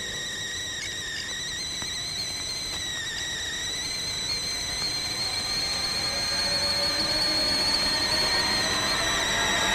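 Kettle coming to the boil, heard as a high, steady whistling whine that slowly gets louder.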